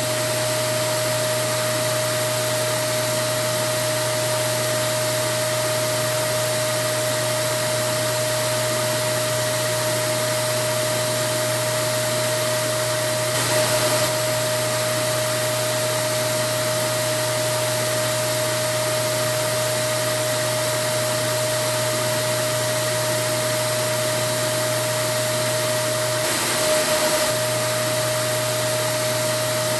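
Vacuum cleaner running steadily: a constant motor whine over a broad rushing hiss, with two brief slight swells in level, about 13 and 27 seconds in.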